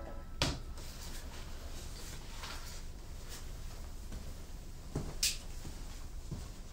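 Quiet room tone with a few faint knocks: one about half a second in and two close together around five seconds in.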